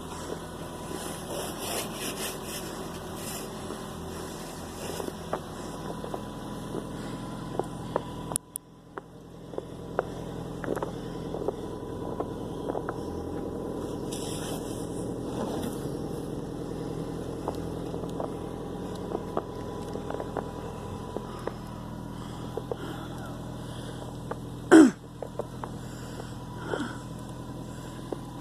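Car engine idling steadily, with scattered light scrapes and knocks as snow is brushed off the car. A single sharp knock about 25 seconds in.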